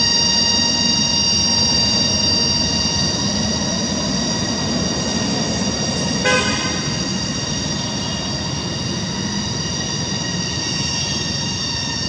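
A continuous chorus of cicadas holding a steady, ringing drone. About halfway through there is one brief call.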